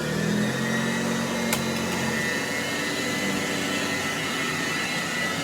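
Hoover Model 475 upright vacuum cleaner from the mid-1930s running steadily at full speed, its motor giving a high, even whine over a lower hum. A single click comes about one and a half seconds in.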